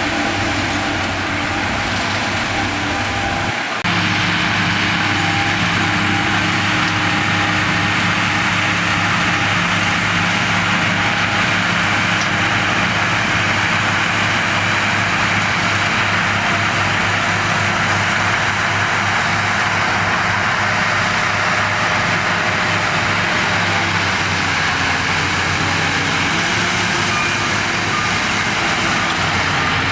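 Shantui DH17 crawler bulldozer's diesel engine running steadily at working speed, with a brief break just before four seconds in.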